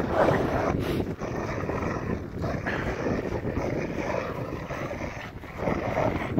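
Two Rottweilers growling as they tug against each other on a rope, with louder patches of growling near the start, about three seconds in and near the end.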